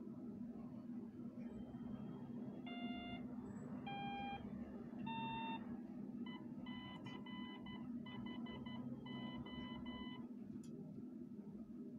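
Morse code from a CW beacon built on an STM32 and an SI4432 transmitter, heard as a beat tone through an RTL-SDR receiver's audio. First come three short tones, each a step higher in pitch. Then a tone near 1 kHz keys on and off in dots and dashes for about four seconds, over a steady low hum.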